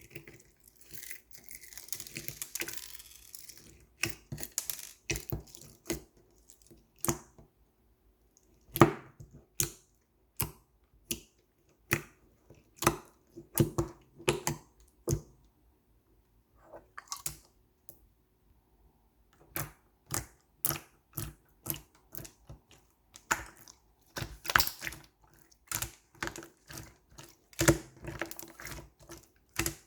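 Slime being pressed and squeezed by hand, giving a long, irregular series of sharp clicking pops, with a crackling stretch in the first few seconds.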